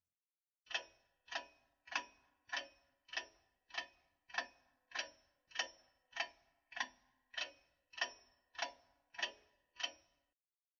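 A ticking clock: sixteen sharp, evenly spaced ticks a little over half a second apart, each with a short ringing tail. It starts just under a second in and stops shortly before the end.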